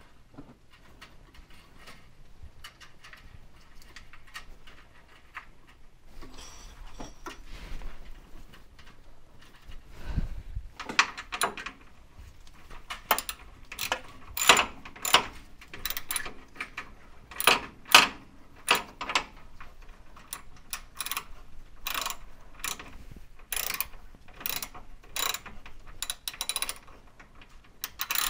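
Hand tools and parts clicking and clinking against stainless steel brake lines and their fittings during installation. The sounds are sparse and faint at first, then come as many sharp, irregular clicks from about ten seconds in.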